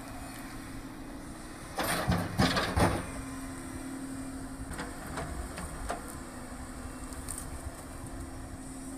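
Log loader's diesel engine running steadily, with a loud clatter of logs dropped from the grapple onto the trailer about two seconds in, then a few lighter knocks of wood and steel.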